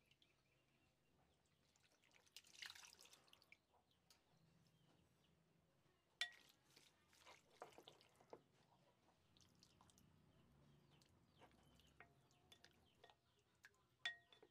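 Faint, quiet sounds of wet cooked tapioca pearls being tipped into a glass bowl and stirred with a wooden spoon, with soft wet clicks and scrapes. The spoon knocks sharply against the glass twice, with a short ring.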